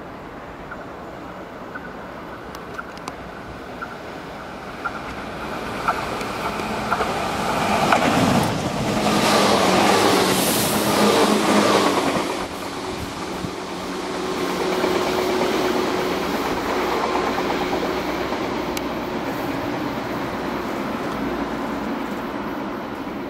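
Tobu 634 series 'Skytree Train' electric train approaching and passing close by, with a few sharp clicks as it nears. It is loudest about eight to twelve seconds in, where its pitch falls as it goes by, then it rumbles away.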